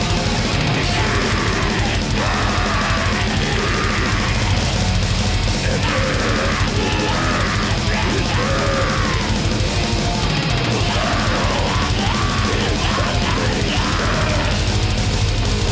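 Black metal band playing live: loud distorted guitars and drum kit in a dense, unbroken wall of sound.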